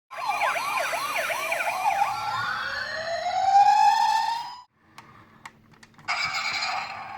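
Toy ambulance minicar's electronic siren: a fast warbling yelp, then a slow rising wail that cuts off suddenly. A few faint clicks follow, and the siren starts again near the end.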